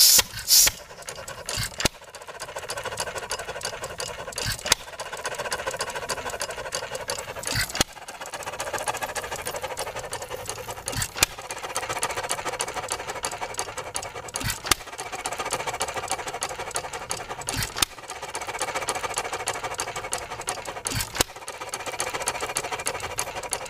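1.5 hp Ideal air-cooled hit-and-miss engine running after a cold start: it fires with a sharp bang about every three seconds and coasts in between with a steady whir.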